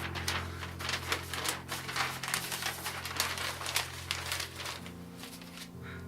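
A paper sheet being pulled away and handled, with irregular crinkling and rustling that thins out near the end.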